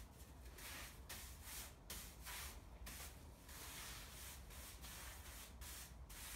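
Bristle hand brush sweeping sawdust off a freshly sawn eucalyptus slab: a run of faint swishes, about two strokes a second.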